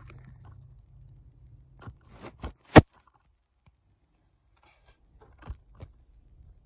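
Handling noises: a few short scrapes and taps, with one sharp click near the middle and a couple of fainter clicks later.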